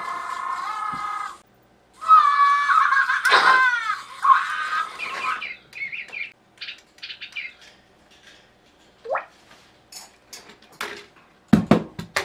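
Electronic chirping and warbling from Scritterz toys, mixed with an African grey parrot's calls, for about the first five seconds. Then scattered short clicks and chirps, a single rising whistle, and a couple of low thumps near the end.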